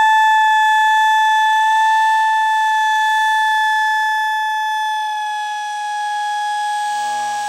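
A girl's yell stretched out by slow-motion playback into one long, high, steady tone with many overtones, slowly falling in pitch. Near the end, lower, slowed-down voice sounds slide in beneath it.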